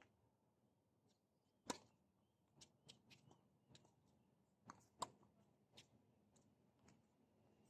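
A tennis rally on a hard court: sharp pops of a racket striking the ball and of the ball bouncing, the two loudest about two seconds in and about five seconds in, with fainter pops from the far end between them.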